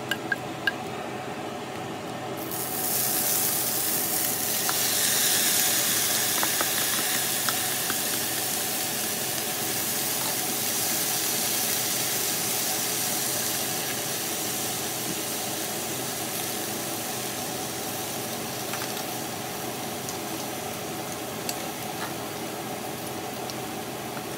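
Spinach, green chillies and dried red chillies sizzling in hot oil while a spatula stirs them in a pan. A few light spatula clicks come first, then a loud sizzle starts about two and a half seconds in and slowly eases as the leaves wilt.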